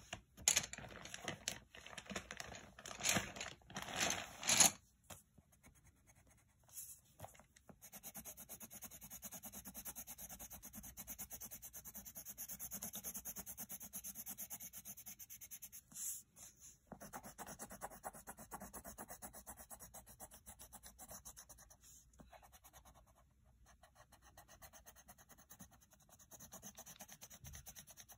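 A red coloured pencil scribbling rapidly back and forth on lined notebook paper, colouring in, with a few brief pauses. In the first few seconds there are several louder rustles and scrapes of paper being handled.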